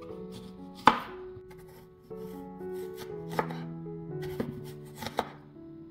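Kitchen knife slicing through an onion into rings and knocking on a wooden cutting board: one sharp knock about a second in, then four lighter cuts in the second half. Soft piano-like background music runs underneath.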